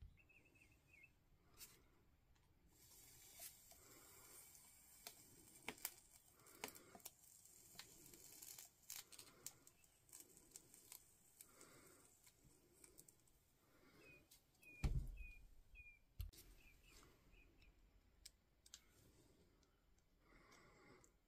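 Faint handling of wires and crimp spade connectors on a workbench: small clicks and rustles, with a soft hiss for several seconds a few seconds in and a single bump about 15 seconds in.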